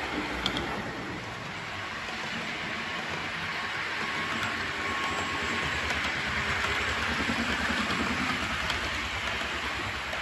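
Hornby OO gauge Class 370 APT model train running on the layout's track: a steady rolling rush of wheels on rail with a low motor rumble and a few faint clicks, swelling slightly past the halfway point as it passes close.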